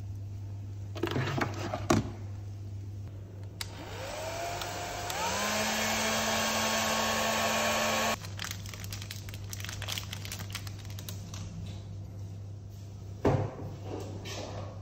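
A hand-held hair dryer is switched on about four seconds in. Its motor spins up with a rising whine, then runs steadily with a rush of air for about four seconds and cuts off suddenly. A few handling knocks come before it and one more near the end.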